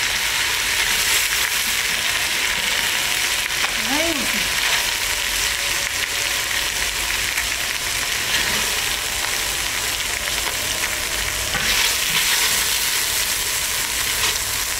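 Bone-in lamb pieces sizzling steadily in hot oil in a pot over high heat, being lightly sautéed.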